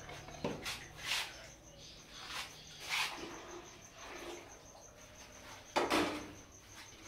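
Metal ladle and pots clinking and scraping in a busy cooking stall: a handful of sharp clinks, the loudest about six seconds in, over a faint, rapidly pulsing high-pitched chirp.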